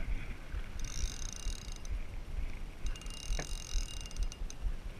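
Spinning reel whirring in two spells of about a second each as a hooked fish pulls on the bent rod, over a steady low rumble of wind on the camera's microphone.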